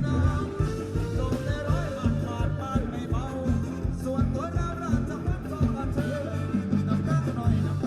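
Thai ramwong band music with a sung vocal line over a steady bass beat.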